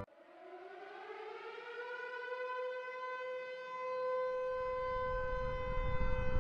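Siren-like power-up tone: one tone winds up in pitch over about the first two seconds, then holds steady, while a low rumble builds up underneath from about halfway in.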